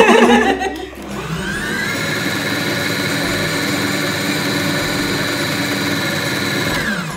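Brief laughter, then an electric stand mixer's motor starts about a second in with a rising whine, runs steadily beating the cake batter, and slows to a stop near the end.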